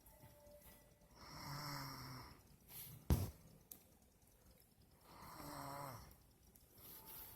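A sleeping person snoring loudly, two long pitched snores about four seconds apart. A single sharp click or knock sounds between them, about three seconds in.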